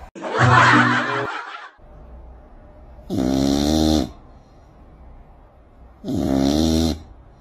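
A cat snoring in its sleep: two drawn-out snores about three seconds apart, each lasting about a second, after a short rasping breath near the start.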